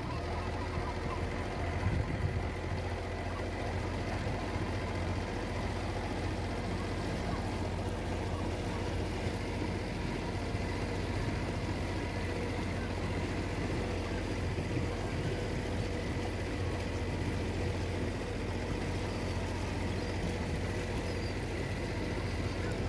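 A motorboat's engine running at a steady pace as the boat cruises, with water rushing past the hull.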